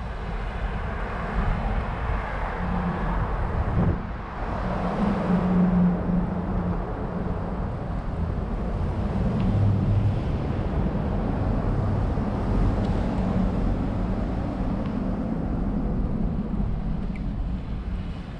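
Wind buffeting the microphone of a bicycle-mounted action camera as the bike rides along, with the tyres rolling over a snowy and bare concrete path and road traffic going by.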